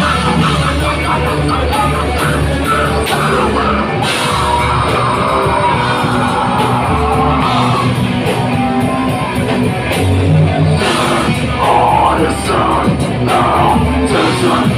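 Live heavy metal band playing loud: distorted electric guitar, bass guitar and drum kit, with a shouted, growled vocal over it.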